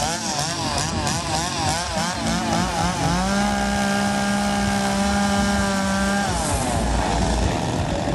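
Two-stroke chainsaw running at high revs. Its pitch rises and falls several times a second for the first three seconds, then holds steady at full throttle for about three seconds before sliding down as the throttle is released.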